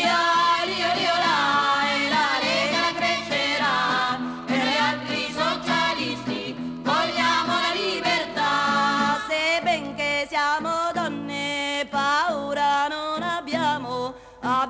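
Italian socialist workers' folk song: voices singing with a steady instrumental accompaniment.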